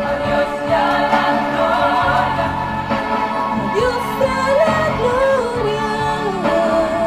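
A Christian song with instrumental accompaniment, and a woman's solo voice singing into a microphone that comes in a little over halfway through.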